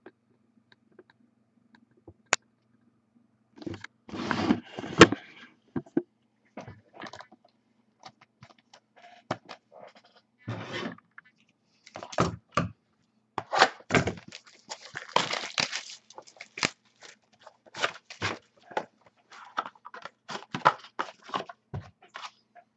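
A sealed box of trading cards being unwrapped and opened by hand: plastic wrapping crinkling and tearing, and cardboard and packs scraping and clicking. The noises come in irregular bursts, starting a few seconds in.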